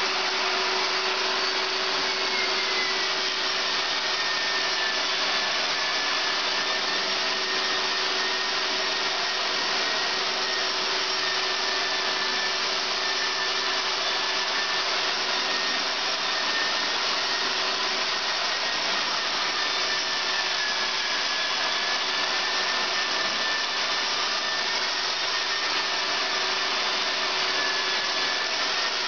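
Long-reach electric drywall sander sanding a plaster ceiling join, with a dust-extraction vacuum drawing through its hose. It makes a steady whir with a hum and a higher whine that wavers a little in pitch.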